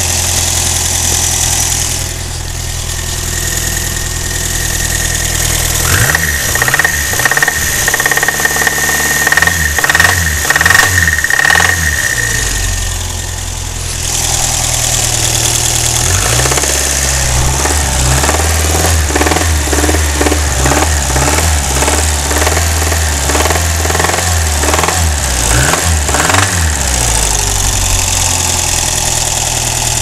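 Renault 5's C3J 1.4-litre pushrod four-cylinder engine running with a clattering rattle. The clatter grows louder and busier in two long stretches, from about six to twelve seconds and again from about sixteen to twenty-seven seconds.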